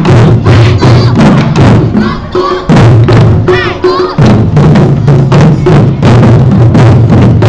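An ensemble of taiko drums beaten with wooden sticks, playing a fast, loud rhythm of deep booms, with brief lulls about two and four seconds in.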